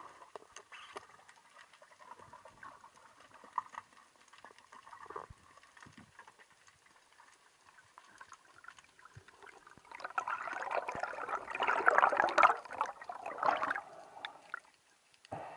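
Underwater sound: faint scattered clicks and crackle, then about ten seconds in a louder rushing, bubbling water sound lasting about four seconds, as the freediver swims up toward the surface.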